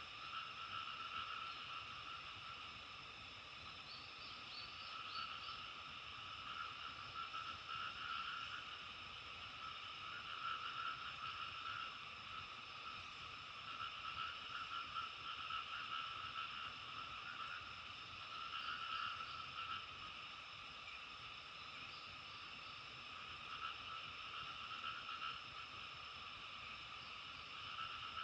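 A chorus of many frogs calling without pause, the massed calls swelling and easing every few seconds, with a thin steady high tone above it and a few short rising chirps about four seconds in.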